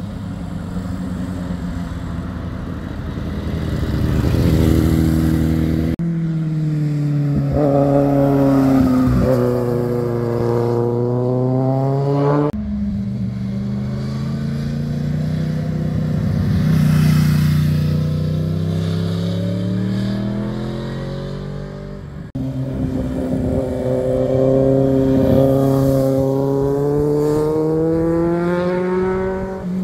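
Motorcycles taking a hairpin bend one after another, their engine notes falling and then rising in pitch as they slow for the corner and accelerate out of it. Several separate passes, cut abruptly into each other.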